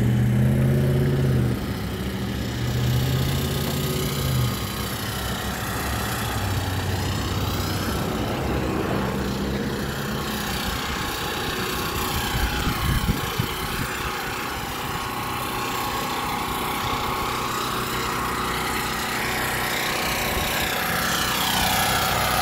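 Small engine running steadily, a portable generator on the job site. Its hum is louder in the first few seconds.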